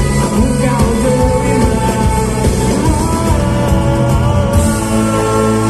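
Live pop-rock band with a backing orchestra playing, with a man singing over it. About a second before the end the drums drop out and the band holds a long sustained chord.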